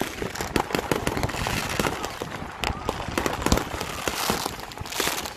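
New Year fireworks going off: a dense, irregular run of cracks and bangs, with one loudest bang about three and a half seconds in.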